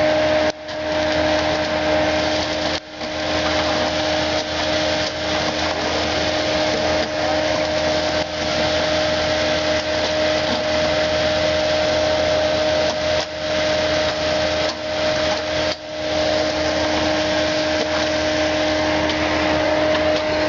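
Bobcat S630 skid-steer loader's diesel engine running steadily, a constant drone with a steady hum. The sound drops out briefly a few times.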